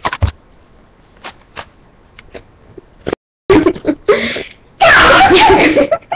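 Scattered faint clicks and knocks, then about halfway through a girl's voice breaks out into a very loud, wavering wailing cry lasting about a second and a half near the end.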